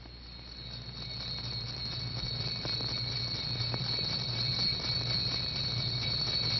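Old film soundtrack noise: a steady hiss with a low hum and a faint high whine, flecked with small clicks, growing steadily louder.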